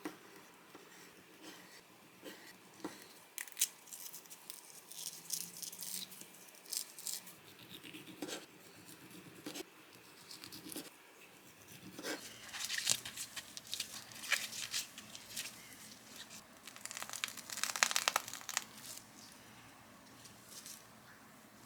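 Irregular crinkling and tearing with small scattered clicks and knocks, busiest in two stretches, a few seconds in and again near the middle to late part: food being handled and unwrapped at a kitchen counter.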